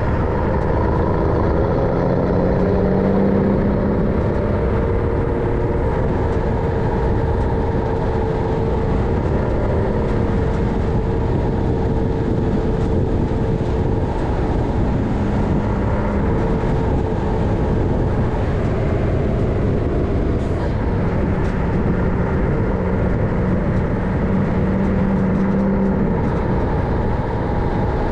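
MAN LE280B 4x4 truck under way, its diesel engine running with a steady drone. A sharp click about two-thirds of the way through.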